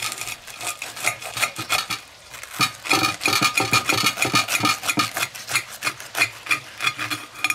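A table knife sawing back and forth through the thick, crisp breadcrumb crust of a deep-fried bacon cordon bleu, making a rapid rasping of short strokes that grows heavier about two and a half seconds in.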